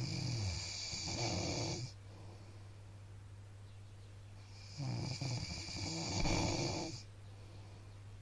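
A man snoring in his sleep: two long snores about five seconds apart, each lasting about two seconds, with quiet breathing between them.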